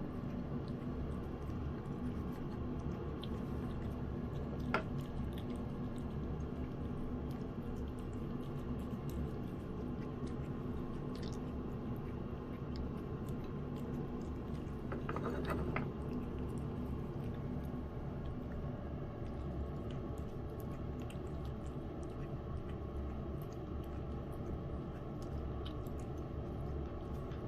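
Lynx point cat chewing wet cat food in gravy: soft, wet, squishy chewing with small clicks, over a steady low hum. There is one sharper click about five seconds in and a brief louder stretch around the middle.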